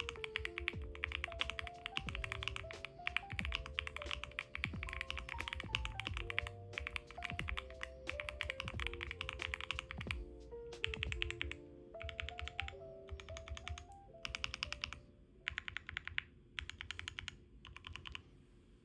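Typing on a mechanical keyboard fitted with Gateron Strawberry Smoothie linear switches, light 40-gram switches, in a fast steady run of keystrokes. Over the last few seconds it breaks into short separate bursts. Soft music plays underneath.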